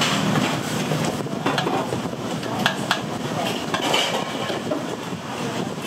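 Restaurant kitchen clatter: utensils and dishes clinking several times over a steady hiss.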